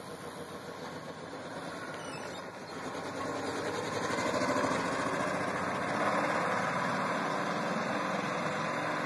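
1998 Ford Ranger's 4.0-litre V6 engine running as the truck pulls away, getting louder about three seconds in. The engine has two dead cylinders and a third one failing, so it is misfiring.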